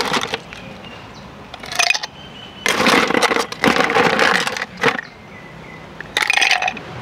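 Plastic scoop digging and crunching into ice cubes in an ice chest, in several bursts. Near the end, ice cubes rattle as they are tipped into a drinking glass.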